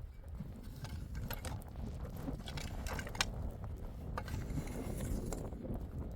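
Irregular sharp clicks and rattles over a steady low rumble.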